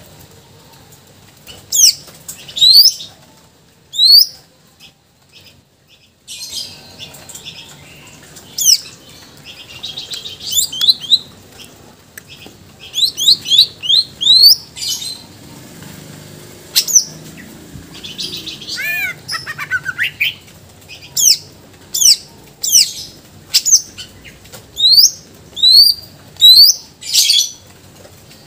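Caged male green leafbird (cucak ijo) singing in full voice: phrases of loud, sharp, quickly sweeping whistled notes, with a brief pause around five seconds in and a run of falling notes about two-thirds of the way through. It is the varied song of a bird going through its repertoire of mimicked calls (isian).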